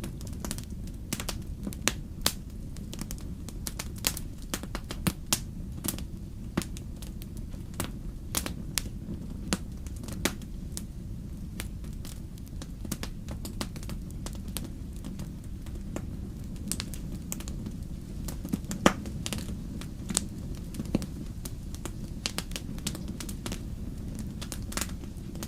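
Wood fire crackling in a fireplace: a steady low rumble of flames with frequent irregular sharp pops and snaps, one louder pop a little past the middle.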